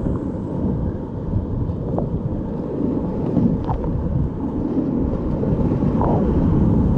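Whitewater rapids rushing around a kayak from the paddler's seat, a loud, steady, muffled rumble, with a few short splashes from the paddle strokes.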